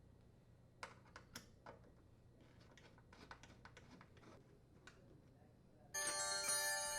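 Scattered faint clicks of a T15 Torx driver unthreading the screws that hold a dishwasher's inner and outer door panels together. Background music comes in near the end.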